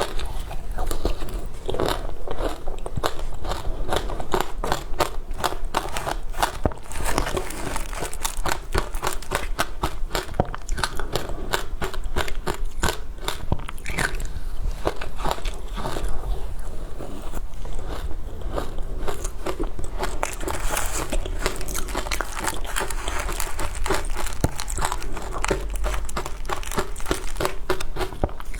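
Close-miked biting and crunching of frozen matcha ice, a dense run of sharp, irregular crackles and crunches with chewing.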